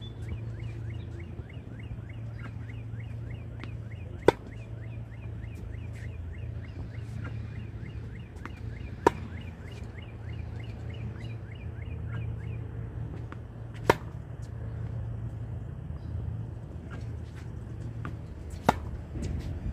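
Tennis ball struck by a racket four times, one sharp hit about every five seconds, as a ball machine feeds him balls. A rapid run of high chirps goes on through the first two-thirds, over a steady low hum.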